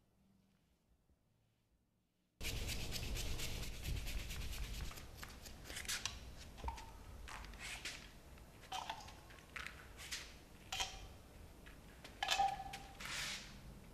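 Near silence for about two seconds, then a paintbrush scrubbing and scraping across canvas in a run of short strokes, several of them with a brief squeak.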